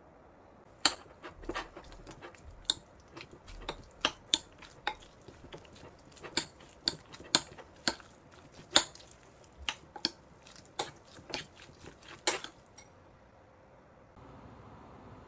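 Utensils clinking against dishes and bowls: a run of sharp, irregular clinks lasting about twelve seconds. A faint steady hiss comes in near the end.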